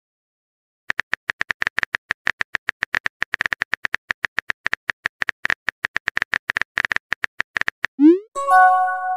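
Chat-app sound effects: rapid keyboard typing clicks, about eight a second, for some seven seconds. They are followed near the end by a short rising whoosh of a message being sent and a chime as the new message arrives.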